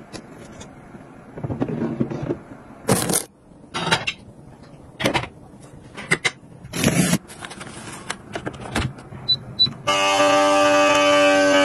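Kitchen tools being handled: a series of separate clicks and knocks as knives go into a knife block and a pot lid and spatula are set on a lid rack. About ten seconds in, a vacuum sealer's pump starts with a loud steady hum as it draws air from a bag of bananas.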